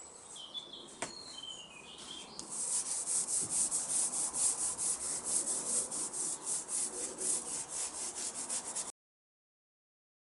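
Fast back-and-forth scrubbing, about six even strokes a second, that starts a couple of seconds in and cuts off suddenly near the end. Birds chirp faintly at the start.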